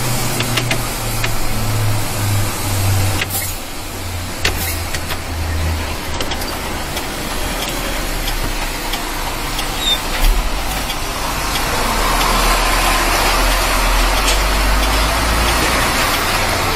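Mercedes-Benz Axor 1840 truck's six-cylinder diesel engine running while driving, heard from inside the cab, its low note shifting as the speed changes. A couple of sharp clicks sound about three and four and a half seconds in.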